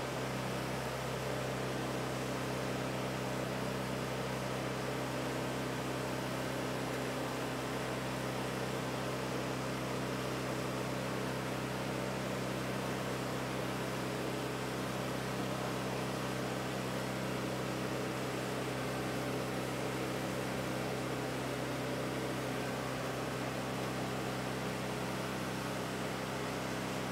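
An engine on the mobile welding truck running steadily at constant speed, a continuous low hum with an even hiss over it.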